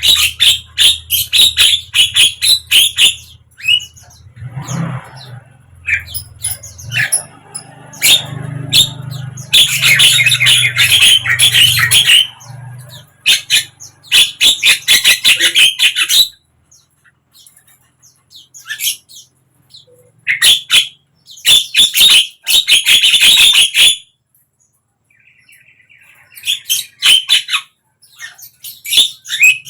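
Javan myna (jalak kebo) singing: runs of rapid, harsh chattering notes mixed with squawks, broken by short pauses, with a low hum underneath for the first half.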